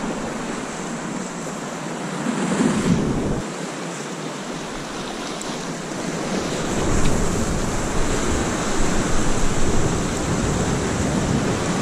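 Sea swell washing and breaking over rocks, a steady rush that surges louder about two seconds in and again for several seconds past the middle.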